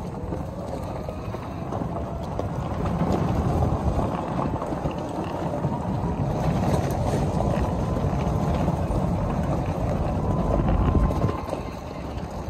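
EZGo 36-volt electric golf cart being driven over gravel: a steady rumble of tyres on gravel mixed with wind on the microphone, with a faint motor whine that rises in pitch as the cart sets off.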